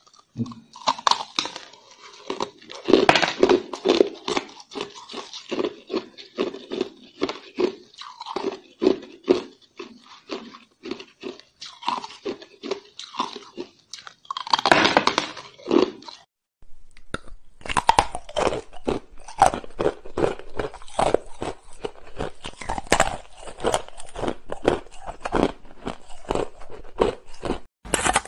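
Hard ice being bitten and chewed: a dense run of sharp crunches and cracks. It breaks off briefly about 16 seconds in, then goes on.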